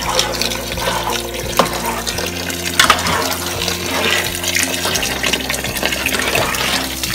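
Tap water pouring steadily from a wall-mounted pot-filler faucet into a metal pot of sauce, splashing into the liquid. A couple of sharp knocks come from a metal ladle stirring against the pot, the loudest about three seconds in.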